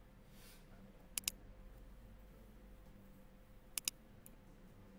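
Computer mouse button clicks: two pairs of sharp clicks, about a second in and again near four seconds in, over a faint steady electrical hum.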